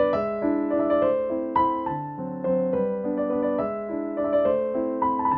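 Background piano music: a melody over chords, with new notes struck about every half second.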